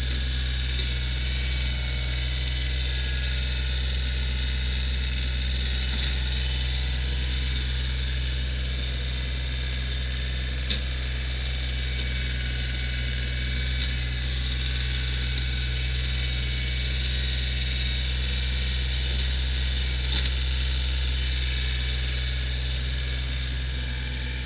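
An engine running steadily at an even speed, with a few faint ticks over it.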